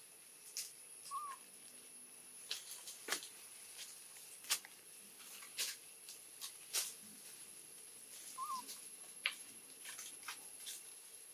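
Irregular sharp clicks and taps as long-tailed macaques drink from a tray and shift about on dry leaf litter, with two short chirps, about a second in and again about eight and a half seconds in, over a faint steady high whine.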